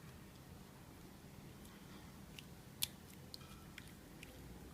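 Quiet handling of a bottle of clear nail polish and its brush: a few faint, short clicks and taps, the sharpest a little under three seconds in, as excess polish is wiped off the brush.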